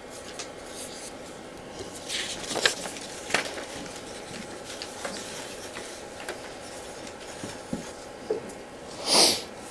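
Pencils writing and tapping on paper, with scattered faint clicks, scratches and paper rustling as several people write at once. There is a short hissing rustle near the end.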